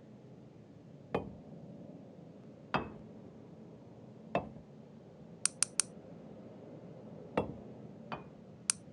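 A series of separate taps and clicks: three heavier knocks about a second and a half apart, a quick run of three light, high clicks, then another knock followed by a softer one and two more light clicks near the end.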